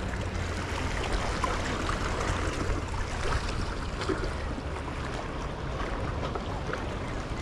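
Steady wash of sea water against shore rocks, with a low rumble of wind on the microphone.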